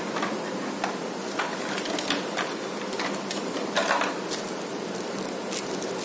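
Handling noise from a plastic unboxing tray and neckband earphones being lifted out of it: scattered light clicks and taps, with a louder cluster about four seconds in, over a steady hiss.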